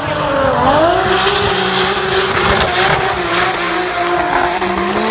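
Drift car's engine held at high revs through a long slide, the revs dipping and climbing back twice, over the hiss and squeal of the rear tyres spinning in the drift.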